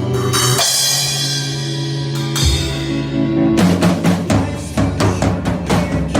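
Drum kit played along with a recorded rock song. The song's sustained chords come first, then a bit over halfway through the bass drum and snare come in with a steady beat.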